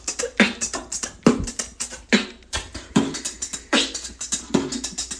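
A person beatboxing: a steady beat of mouth-made drum sounds, with a strong hit about every second and quick clicking hi-hat-like sounds between.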